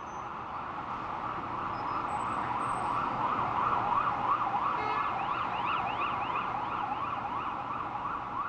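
Several emergency-vehicle sirens overlapping, each rising and falling quickly in pitch about three times a second, over steady city traffic noise. The sound fades in at the start.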